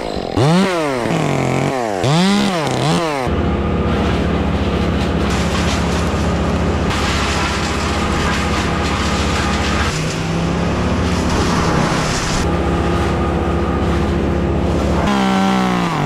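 Chainsaw revved in a few quick blips, then held at high revs for about twelve seconds as it cuts through a limb, dipping briefly in pitch partway through, before it revs up once more and drops back near the end.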